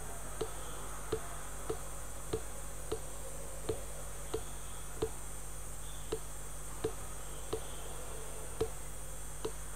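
Computer mouse clicking about a dozen times, roughly one sharp click every two-thirds of a second, placing anchor points with Illustrator's pen tool while tracing a shape. Under it runs a steady low hum and hiss.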